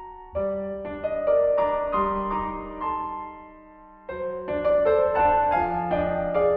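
Background piano music: slow chords struck a few times, each held and fading away, with a fresh chord about four seconds in.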